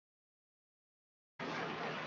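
Dead silence, then a steady hiss of background noise that switches on abruptly about one and a half seconds in.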